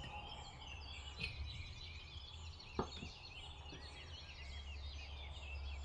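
Birds chirping and twittering in the background: many short, high calls over a steady low hum, with a faint tick about three seconds in.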